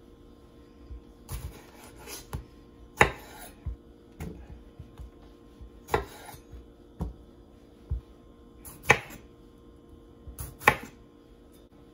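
Chef's knife cutting tomatoes into quarters and knocking on a bamboo cutting board: about nine sharp knocks at an unhurried, uneven pace, a few of them much louder than the rest.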